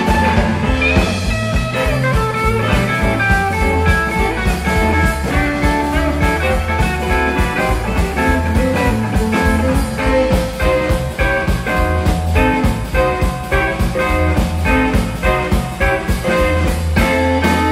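Live blues band playing an instrumental boogie: electric guitars, bass guitar and drum kit, with guitar lines over a steady drum beat.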